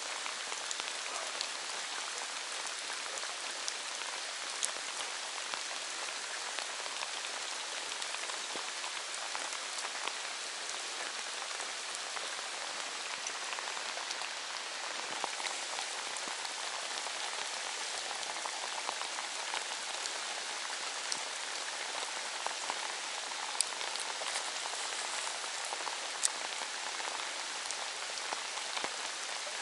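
Steady rain falling, an even hiss of drops with scattered sharper drop ticks now and then.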